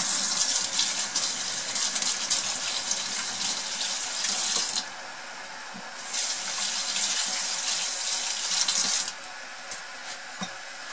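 Kitchen tap running while hands are washed under it, in two spells: the water runs for about five seconds, stops for just over a second, then runs again for about three seconds before being turned off.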